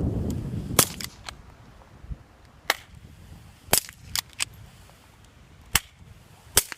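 Shots from a spring-powered 1911-style airsoft pistol and a Ruger 22/45 Lite .22 pistol with a Huntertown Arms Guardian 22 suppressor, fired in turn: about six sharp cracks at uneven spacing with fainter clicks between. The two guns are very close in loudness and differ in tone.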